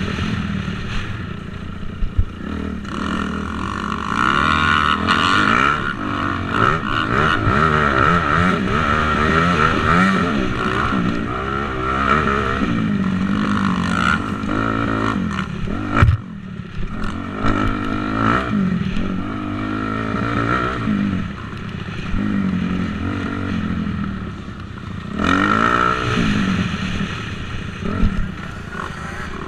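Motocross motorcycle engine racing around a track, its pitch rising and falling again and again as the rider revs out, shifts and backs off for turns and jumps. Sharp knocks stand out, the loudest about sixteen seconds in.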